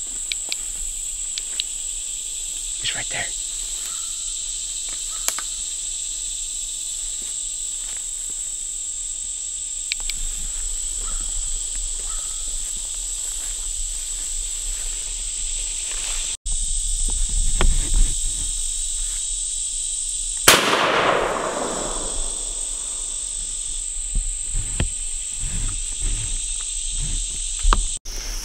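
A single gunshot about twenty seconds in, echoing off through the trees. High-pitched insects drone steadily underneath.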